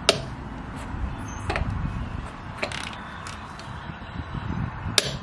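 ICON 1/2-inch flex-head torque wrench with its 90-tooth ratchet being worked on a wheel lug nut: a low ratcheting and handling noise with several sharp metal clicks at irregular intervals.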